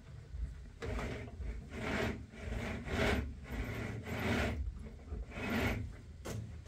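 A canister vacuum cleaner's floor nozzle rubbed back and forth over a rug, about six rasping strokes roughly a second apart.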